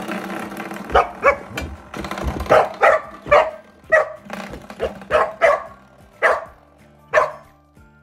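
Australian Shepherd barking and yipping in short, sharp bursts, about a dozen times, while playing at a box of spring door stoppers, over background music.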